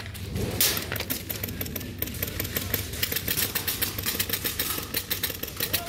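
Airsoft guns firing on full auto: a fast rattle of sharp clicks that grows denser about two seconds in, over a low mechanical hum.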